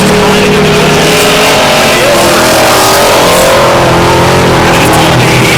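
Several dirt-track race engines running together at full throttle, their pitches rising and falling as the vehicles lap the oval.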